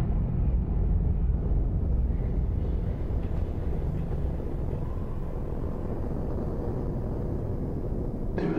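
A steady low rumbling drone with no distinct events, easing slightly in level about three seconds in.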